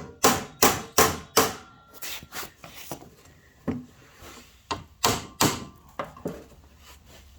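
Irregular sharp knocks and clicks from handling a lawnmower's front wheel in its housing. A quick run of five knocks comes at the start, then scattered lighter ones, then another loud cluster about five seconds in.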